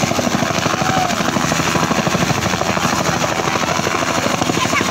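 Bell helicopter lifting off and climbing overhead: its main rotor makes a steady, rapid, loud beating over the running turbine.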